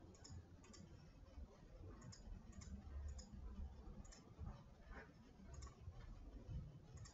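Faint computer mouse clicks, about eight of them at uneven intervals, over a low, quiet background hum.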